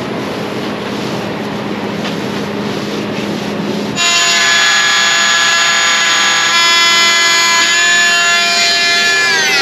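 Steady shop noise, then, about four seconds in, an oscillating multi-tool starts abruptly and runs at a steady high buzz as it trims the ragged fiberglass edge of a laminated part. Near the end its pitch falls away as the tool winds down.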